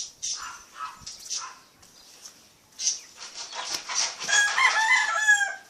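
A dog whining, a run of high, wavering cries that grows loud in the second half.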